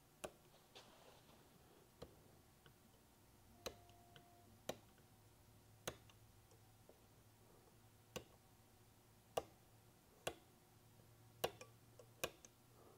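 A sharp pick punching holes through a thin FEP film at the screw holes of a metal vat frame: a series of crisp single clicks, about one a second at uneven spacing.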